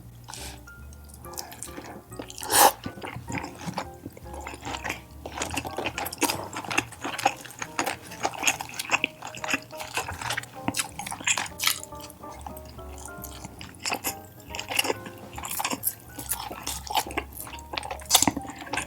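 Close-miked eating sounds: wet chewing, lip smacks and mouth clicks, with one sharper, louder click about two and a half seconds in, over quiet background music.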